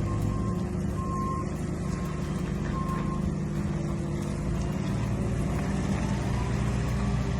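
Diesel engine of farm machinery running steadily while unloading straw bales, with a reversing alarm beeping at an even pace for the first three seconds or so. A rising whine comes in near the end.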